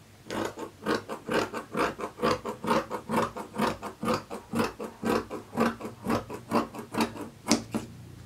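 Fabric shears cutting through cloth in a steady run of snips, about three a second, stopping shortly before the end with the loudest snip just before they stop.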